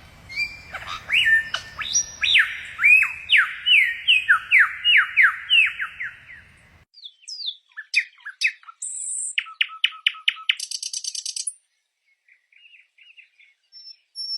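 Bird calls from two recordings. The first is a fast run of loud, sharp whistled notes, each sliding in pitch, over a low background hum. After an abrupt cut comes a quieter series of dry, rapid clicks and buzzes, then a few faint short notes.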